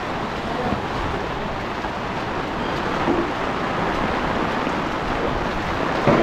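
Steady heavy rain falling, drumming on an umbrella overhead and splashing on the wet street. A brief louder knock comes near the end.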